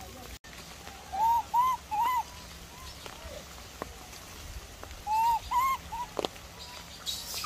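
A bird calling: two groups of three short, arched whistled notes, about four seconds apart.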